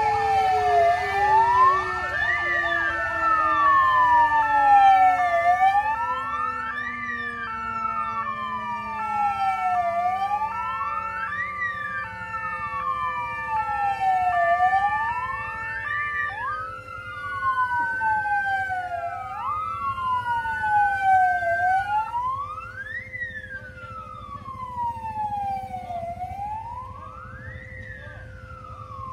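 Several emergency-vehicle sirens sounding at once: a wail siren rising and falling about every four to five seconds, and a two-tone siren stepping between two pitches that stops about halfway. Underneath, a low tone slides slowly downward.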